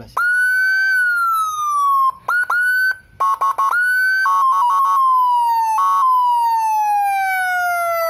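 Homemade dual-tone electronic siren module sounding its twelfth pattern. A tone jumps up and slides slowly down, again and again, broken by quick choppy two-note warbles. Its speaker is plugged to damp the loudness.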